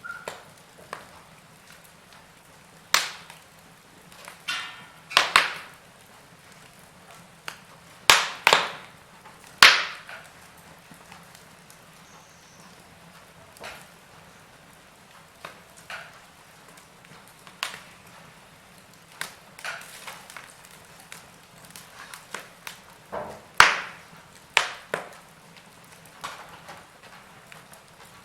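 Wood fire burning in a fireplace: logs crackling with irregular sharp pops and snaps over a faint steady hiss.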